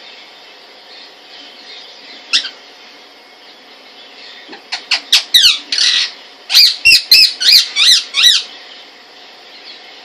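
Indian ringneck parakeet calling loudly: one short squawk about two seconds in, then from about halfway a quick run of about a dozen sharp squawks, each sliding in pitch.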